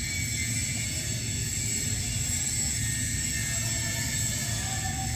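A steady low mechanical hum with a high hiss, even throughout, from machinery running in the background.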